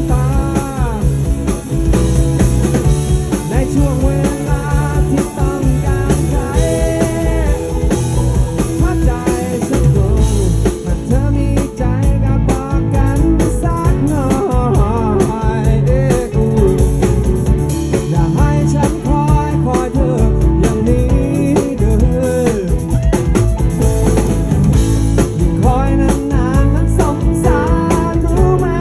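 Live rock band playing: male voices singing over electric guitars, with a steady beat.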